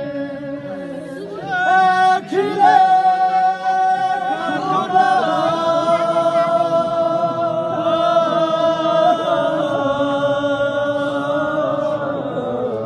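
A Balti marsiya, a Shia mourning elegy, chanted unaccompanied in long drawn-out held notes with slow glides between pitches. It grows louder about a second and a half in.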